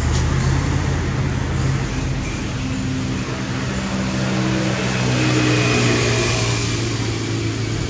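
A motor vehicle engine running nearby: a steady, loud hum with slight shifts in pitch, over broad road-like noise.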